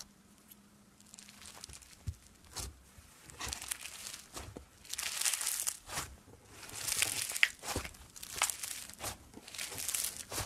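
Fluffy cloud slime being squeezed, pressed and pulled apart by hand, giving soft crackling and crunching squishes. Quiet for the first couple of seconds, then a run of crackly squeezes that are loudest from about halfway through.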